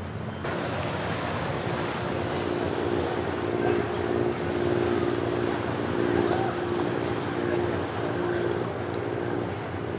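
Motorboat engine running steadily with a constant hum over wind and water noise, starting about half a second in.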